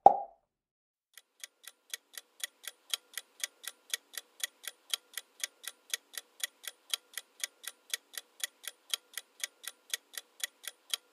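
Clock-ticking countdown-timer sound effect, about four ticks a second, starting about a second in and growing slightly louder over the first few ticks. A short pop is heard at the very start.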